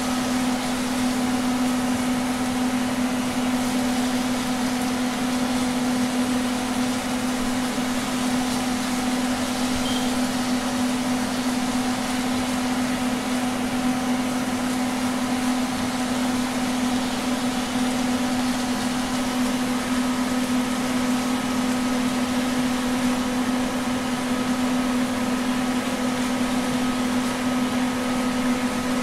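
Steady, unchanging hum of a kitchen fan motor at one low pitch, over a faint even hiss of beef strips and onions frying in a pan.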